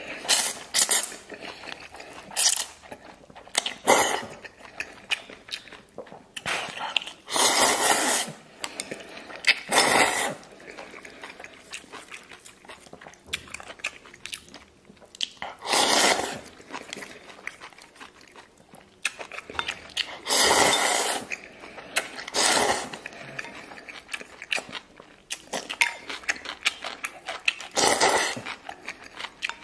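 A person slurping thick oil-splashed noodles in a series of loud slurps about a second long, every few seconds. Quieter chewing and mouth sounds come between the slurps.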